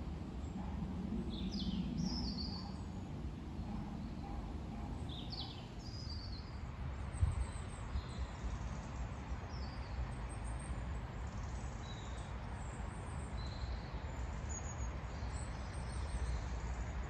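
Birds chirping outdoors: short high calls, a few at a time, over a steady low rumble. A single knock comes about seven seconds in.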